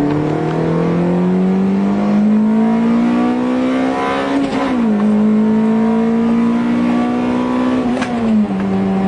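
2000 Toyota Celica GT-S's 1.8-litre four-cylinder engine pulling hard under acceleration, heard from inside the cabin: its pitch climbs steadily, falls abruptly at an upshift about four and a half seconds in, climbs again and falls at a second upshift near the end.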